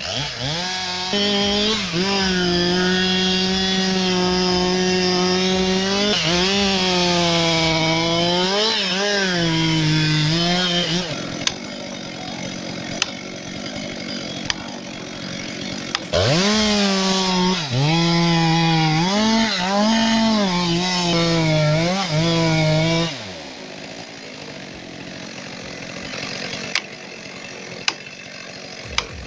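Stihl MS 462 two-stroke chainsaw cutting a tree at full throttle, its pitch dipping and recovering as the chain loads up in the wood. It drops back to a quieter stretch with a few sharp clicks, comes back on the cut, and falls quieter again for the last several seconds.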